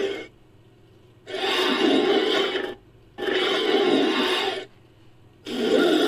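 Monster creature-call sound effect, mixed from movie man-bat and monkey-men sounds. It gives repeated harsh calls of about a second and a half each with short pauses between: one ends just after the start, and three more begin about a second, three seconds and five and a half seconds in.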